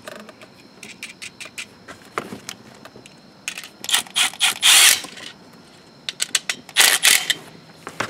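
Milwaukee cordless ratchet run in short bursts, running a nut down onto the fuse block's power stud, with scattered ratchet clicks between runs. The longest and loudest run comes about four to five seconds in, with a shorter one near seven seconds.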